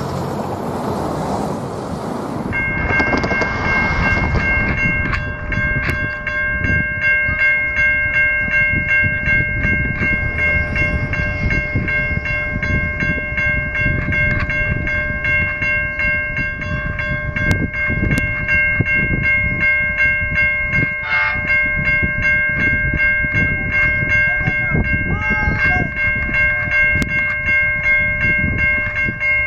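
The passenger train's cars rolling past for the first couple of seconds, then a level crossing warning bell ringing rapidly and steadily, warning of an approaching train.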